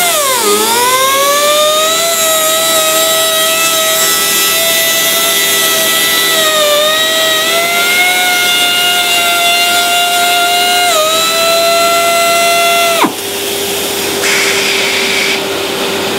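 Step sanding tool's high-speed motor whining as its cutter sands down through the plies of a composite laminate. The pitch drops sharply at the start as the cutter bites in under load, then recovers and holds with small dips. About thirteen seconds in the whine cuts off suddenly, leaving a lower steady hum and hiss.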